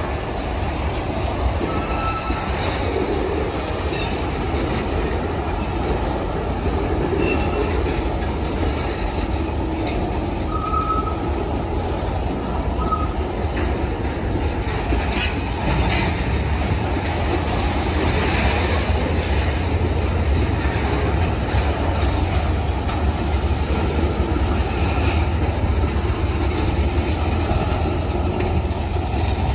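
Union Pacific train's cars rolling steadily past on the rails, a continuous rumble with a few brief faint wheel squeals and a couple of sharp clicks about halfway through.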